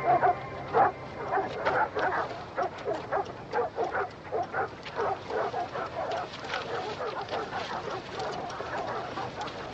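Dogs barking and yapping in many short, irregular barks.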